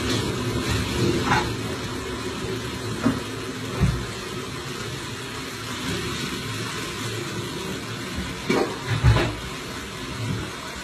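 Steady rush of running and splashing water, with a few knocks and low thumps, loudest in a cluster near the end.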